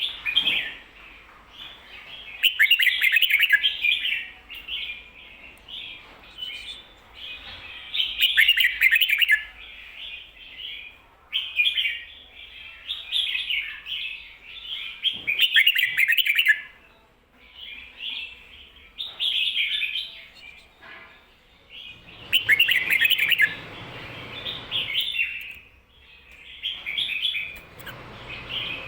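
Red-whiskered bulbul singing its doubled 'ko-ta-ra' song: bright warbling phrases repeated over and over, each lasting one to a few seconds, with short pauses between.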